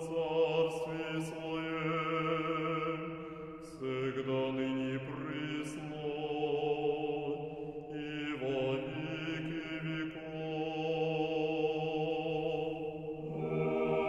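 Mixed chamber choir singing Orthodox liturgical music a cappella, in slow, held chords that change about every four to five seconds and grow louder near the end.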